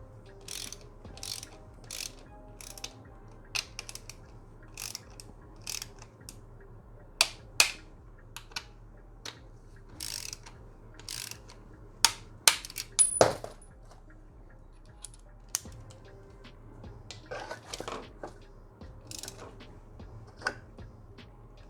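Metal hand tools and bolts clinking, with ratchet-like clicks, as the engine-guard mounting bolts are worked on a motorcycle. The clicks come irregularly, with a handful of louder sharp metallic clinks partway through.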